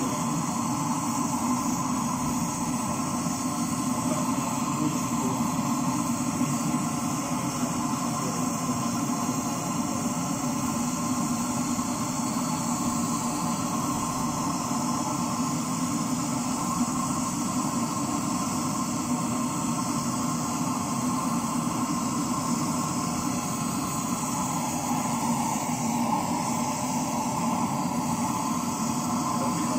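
Bell-metal melting furnace running with a steady rushing noise and a constant hum, as the bronze melts before the pour.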